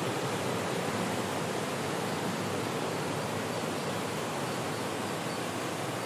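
Heavy ocean surf breaking on a rocky shore, a steady rushing wash of water with no single crash standing out, easing slightly in level.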